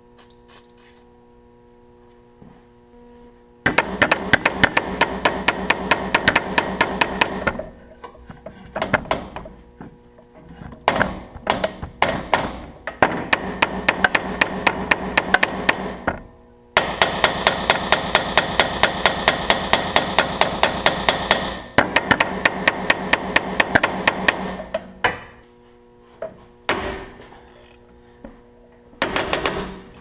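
Rapid mechanical hammering on a steel power steering line fitting, about eight blows a second, in four long bursts of several seconds each, with shorter knocks and rattles between them.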